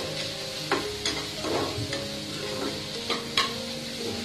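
Chopped onion and green chilli sizzling in hot oil in a nonstick kadhai, with a spatula scraping the pan several times as they are stirred over the steady frying hiss.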